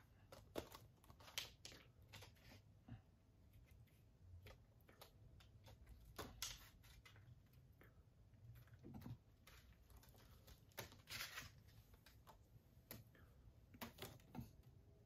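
Faint, irregular clicks, taps and light rustles of a plastic Blu-ray case being handled and opened.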